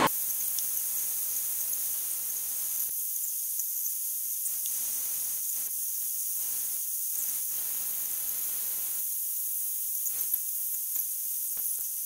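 Two butane cartridge blowtorches burning with a steady high hiss as they heat a copper tube for silver soldering, with a few faint ticks near the end.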